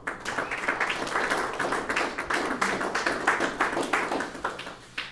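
Audience applauding at the close of a talk: a dense run of claps that starts at once and fades out near the end, with one last clap.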